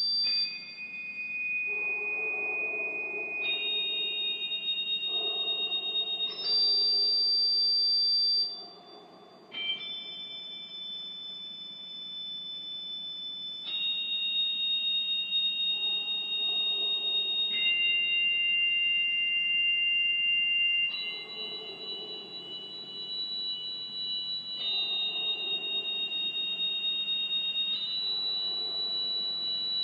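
Organ holding high, pure-toned chords and clusters. Each block is sustained for a few seconds and then changes to the next, over fainter lower notes.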